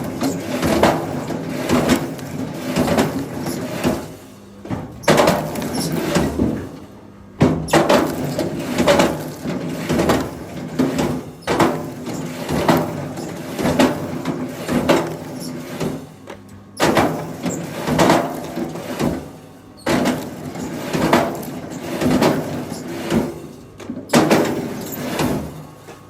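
Wood knocking and cracking again and again, sharp hits every second or two over a steady engine drone, as logs are handled.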